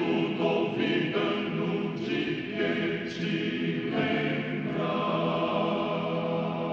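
Choir singing a slow chordal passage. The chord shifts a few times, then settles on a long held chord about five seconds in.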